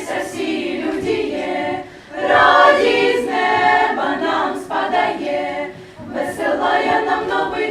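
A choir singing a Ukrainian Christmas carol unaccompanied, in sung phrases with two short breaks for breath, about two and six seconds in.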